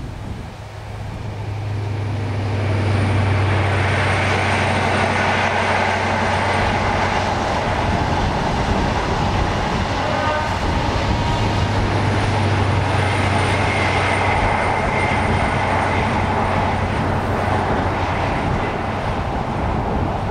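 Diesel passenger train passing along the line. A low engine drone swells, eases mid-train, then swells again as the rear end goes by, over a steady rumble of wheels on rail.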